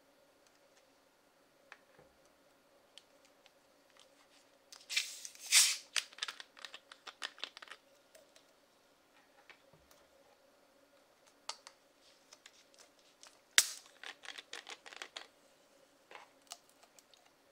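Screw caps on plastic soda bottles being twisted open, twice. The first gives a loud hiss and then a run of small ratcheting clicks. The second starts with a sharp crack and is followed by more clicks.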